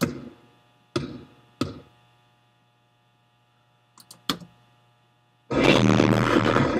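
Sound effects from an iMovie theme intro: three sharp hits with ringing tails in the first two seconds, two quick clicks about four seconds in, then loud electronic music that comes in about five and a half seconds in.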